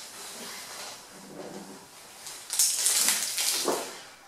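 A clear plastic bag crinkling and rustling as it is handled. The crinkling is loudest from about two and a half seconds in, after some lighter handling noise.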